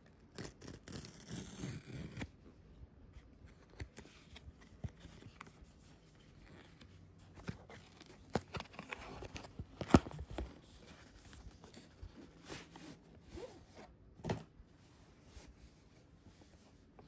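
Hands opening a camera's cardboard retail packaging: a seal sticker peeled and torn off in the first couple of seconds, then scraping and rustling of cardboard as the inner box is slid out and opened. A sharp click about ten seconds in and a smaller knock near fourteen seconds.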